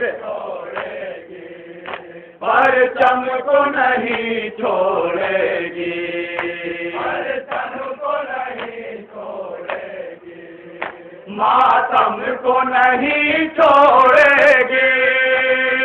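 Men chanting a noha, a Muharram lament, through a microphone and PA: a lead voice sings in phrases with short pauses between them, with other voices joining in.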